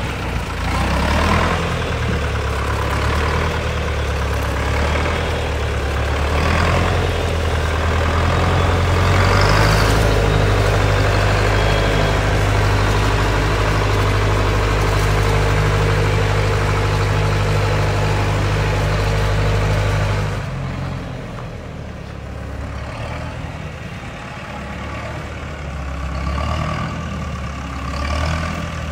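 Nuffield diesel tractor engine running. Its revs rise about a quarter of the way in, hold steady, then drop back to idle about two-thirds of the way through.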